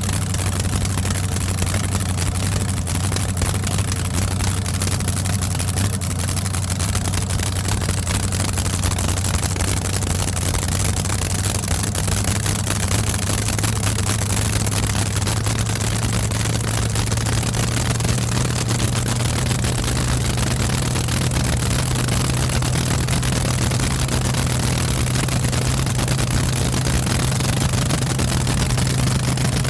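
An engine running steadily; its low hum rises a little in pitch about a third of the way through, then holds at the new speed.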